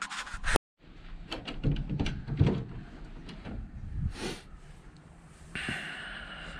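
Heavy wooden door being opened by hand: a run of clicks, knocks and low clunks from the latch and door. Then a steadier background hiss sets in as the door stands open to the outside, about five and a half seconds in.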